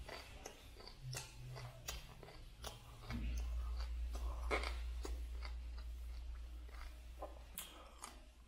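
Raw broccoli being chewed close to the microphone: irregular wet crunches from the mouth. A low steady hum comes in about three seconds in.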